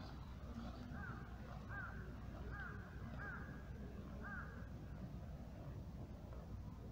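A crow cawing five times in a row, a little under a second apart, over a steady low rumble.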